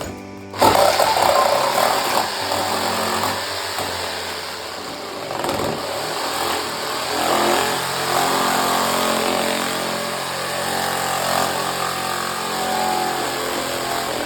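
A motor starting abruptly about half a second in and running on with a steady noisy whir, its pitch shifting now and then.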